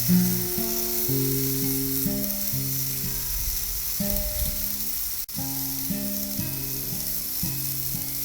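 Steady sizzling hiss of food cooking on a grill, under music with low plucked notes changing every half second or so. The sound cuts out for a moment about five seconds in.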